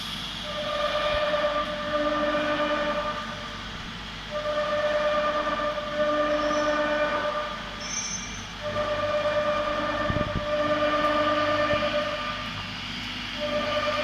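The air-cooled spindle of a STYLECNC STM1325 CNC router, whining steadily as it cuts wood. The tone comes in stretches of a few seconds with short dips between them.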